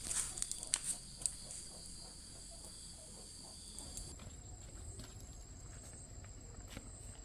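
Insects trilling steadily in a high-pitched chorus, whose pitch shifts about four seconds in, with a few sharp taps in the first second and a half.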